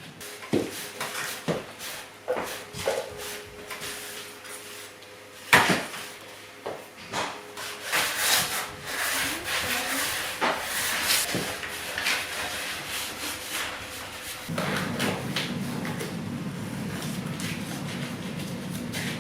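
Wood knocks and taps as the stained wooden table base is handled, then a cloth rubbing over the wood as it is wiped down. One sharper knock stands out about five seconds in.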